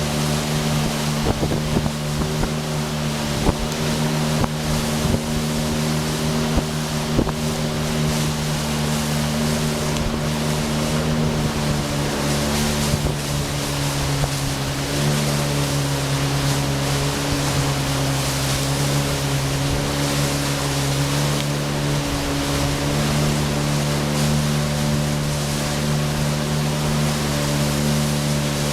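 Speedboat engine running steadily at speed, with water rushing past the hull and wind on the microphone. The engine's pitch shifts slightly a few times, and a few sharp knocks come in the first several seconds.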